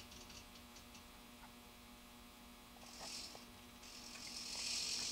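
HO-scale car-dump unloader with a model boxcar tipped on it: a steady electrical hum, then a brief hissing rattle about three seconds in and a longer one from about four seconds as the mechanism rocks the car back toward level.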